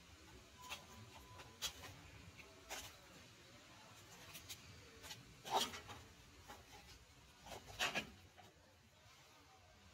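Faint rustling and scraping of a furry Halloween mask being handled on a shelf: a few short rustles and taps, the loudest about halfway through and again near the end.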